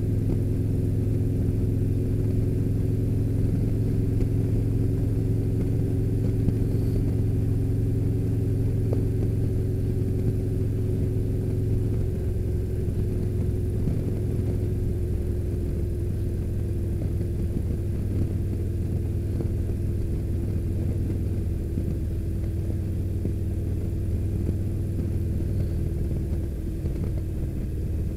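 Touring motorcycle's engine running steadily while riding at cruising speed on a road. About twelve seconds in, the engine note changes and gets slightly quieter.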